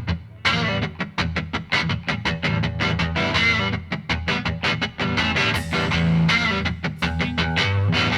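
Background music: a guitar picking a quick, even run of notes over a steady low line.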